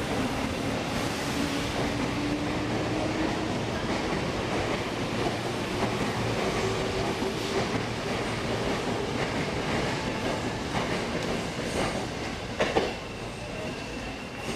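JR Yamanote Line electric train pulling out of the platform: a steady rumble of wheels on rail, with a motor whine slowly rising in pitch as it gathers speed. A few sharp clicks come late on, and the sound drops away near the end as the last car clears.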